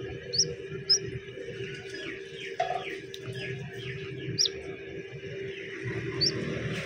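Chicks peeping: a few short, sharp high chirps spaced out over the seconds, with fainter falling cheeps in between, over a steady low hum.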